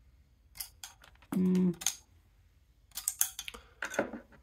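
Small clicks and taps from hands handling a headphone amplifier and the metal 3.5 mm jack plug of its headphone cable, coming in a few quick clusters, with a short low hum about a second and a half in.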